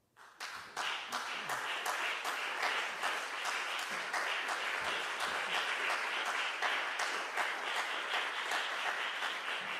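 Audience applauding, breaking out suddenly just after the start and holding steady.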